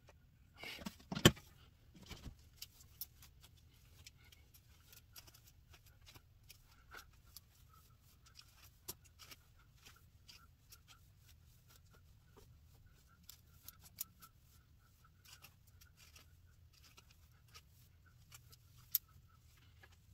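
One loud hard clack about a second in, with a few lighter knocks around it, as a hot hair-styling iron is handled and set down. After it, scattered soft ticks and scrapes of a plastic comb drawn through a synthetic wig.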